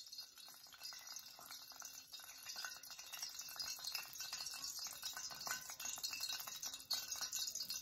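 Fish pieces being turned and coated in flour in a bowl: faint, irregular rustling and light clicks and scrapes.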